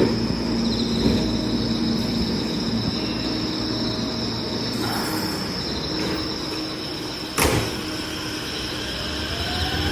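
JR West 227 series electric train standing at the platform with a steady hum from its equipment, one sharp knock about seven and a half seconds in, and a faint rising motor whine near the end as it starts to pull away.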